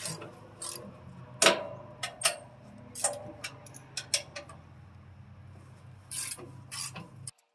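Wrench working the mounting bolts on a tractor-mounted wood chipper: irregular metal clicks and clinks, a few ringing briefly, over a low steady hum.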